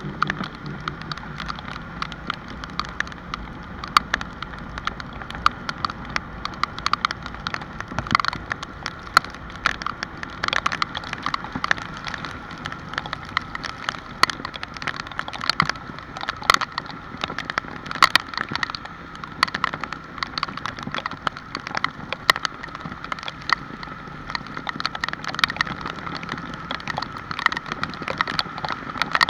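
Rain falling, with many irregular drops tapping sharply on a hard surface.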